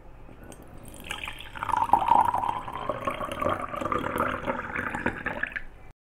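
Water poured in a thin stream into a glass jar, splashing and gurgling, its pitch rising steadily as the jar fills. It starts about a second in and stops abruptly near the end.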